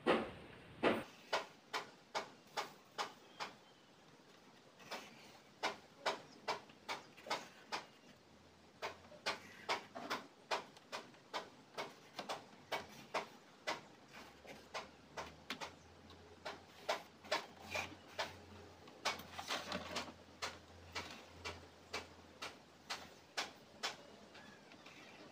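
Pencil tracing the outline of a template onto a white sheet: a long run of short, sharp scratching strokes, roughly two a second, some in quick pairs.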